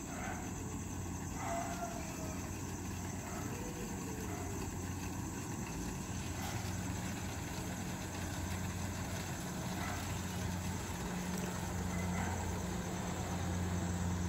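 Kubota DC-68G tracked combine harvester running steadily as it cuts paddy rice, its diesel engine hum slowly growing louder as the machine comes closer.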